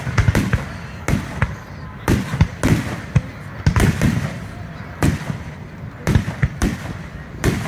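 Aerial firework shells bursting in a rapid barrage: sharp bangs coming two or three a second, each trailing off in a low rumbling echo.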